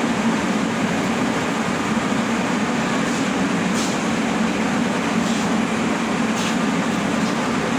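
Metrô Rio subway train standing at an underground platform, its onboard equipment giving off a steady low hum under an even rush of noise, with a few faint brief hisses.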